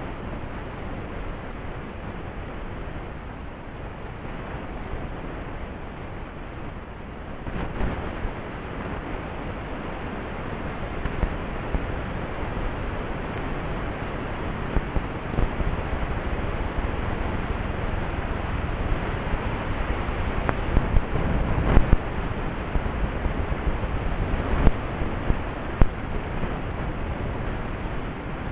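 A steady rushing noise inside the cab of an overturned semi truck, getting louder several seconds in, with scattered knocks and thuds as the people inside clamber about.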